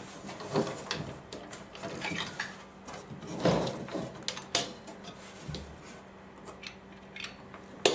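Bifold closet door being moved in its overhead track: scattered clicks, rattles and knocks from the pivots and slide guide. There is a louder knock about three and a half seconds in and a sharp one near the end.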